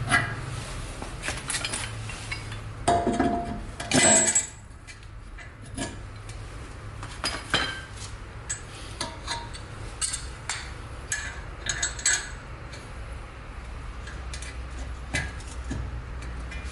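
Metal hand tools clinking and knocking against the steel hub and bolt, scattered irregularly, with a louder clatter about three to four seconds in.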